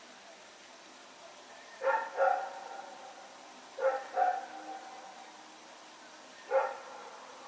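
Belgian Malinois dog barking five times: two quick pairs of barks, then a single bark near the end.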